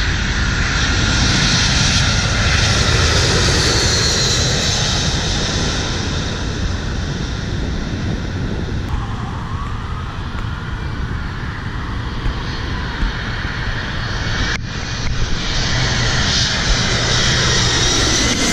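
Jet airliners on final approach passing low overhead: steady jet engine noise with a high whine that slides down in pitch as a plane goes by.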